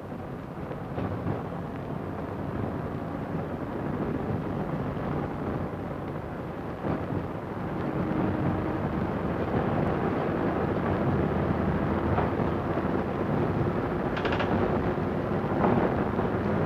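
Diesel railcar accelerating from rest: a steady rumble of its underfloor diesel engines and wheels on the track, growing louder over the first half, with a few faint clicks.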